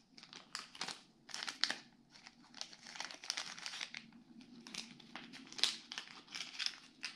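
A small clear plastic parts bag crinkling in the hands as it is opened and handled, in irregular crackles.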